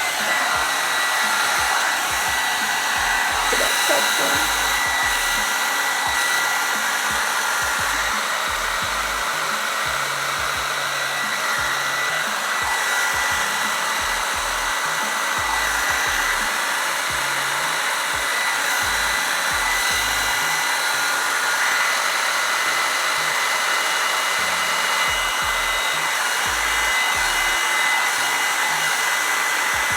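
Revlon One-Step hair dryer brush running steadily on its low heat setting while brushed through wet hair: a constant rush of air with a thin, steady whine on top.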